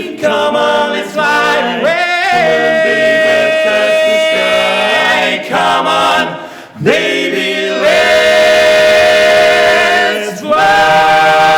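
Male barbershop quartet singing a cappella in close four-part harmony, with long sustained chords. A new chord starts a little before the end and is held.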